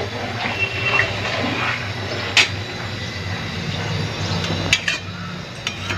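A few sharp metal clinks of a spoon against steel cookware, over a steady low rumble.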